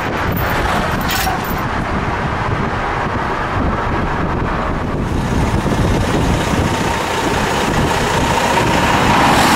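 Steady rumble of highway traffic and heavy trucks passing close by on a bridge, with a faint steady whine coming in about halfway through and growing a little toward the end.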